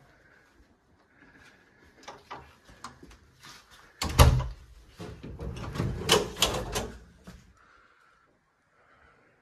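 Wooden cabinet door opened with a sharp knock about four seconds in, followed by a couple of seconds of knocking and rattling as it is handled and swung open.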